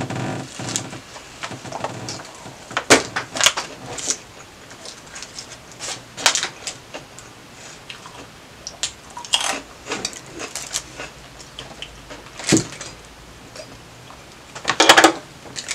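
Close-miked eating: chewing a bite of a Subway steak and cheese sandwich, then crunching lime Hot Cheetos, heard as scattered short crunches and clicks. There is a louder burst of crunching and crinkling near the end.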